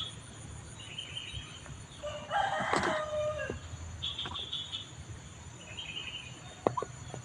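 A rooster crowing once, a long call of about a second and a half, starting about two seconds in, with short high chirps of birds or insects around it.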